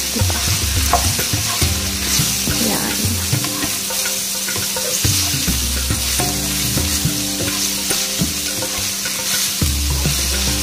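Ground beef with onion and garlic sizzling in a frying pan as it is sautéed, with irregular scraping and stirring strokes from a spatula against the pan.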